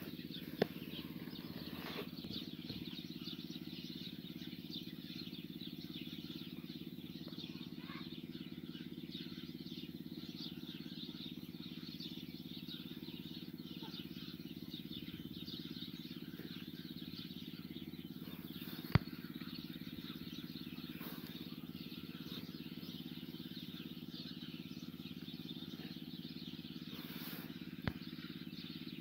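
Outdoor background sound: a steady low hum under a faint high crackle, with three sharp clicks, the loudest about two-thirds of the way through.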